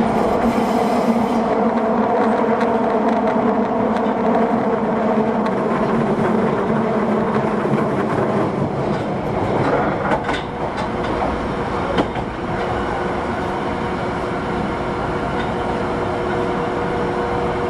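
Osaka Metro 31-series (30000-series) subway train running, with the steady whine of its Hitachi SiC VVVF inverter and motors over wheel and track noise. A few sharp clicks come about ten to twelve seconds in.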